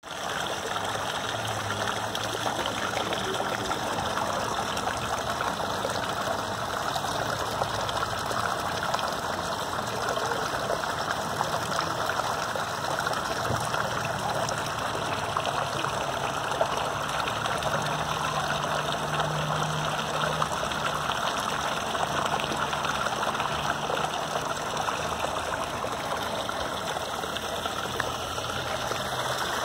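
Flowing water rushing: a steady, even noise that holds at the same level throughout.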